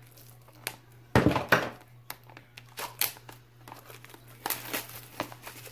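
Small cardboard product box being opened by hand, its packaging crinkling and tearing in irregular rustles and clicks, with the loudest burst of crinkling about a second in.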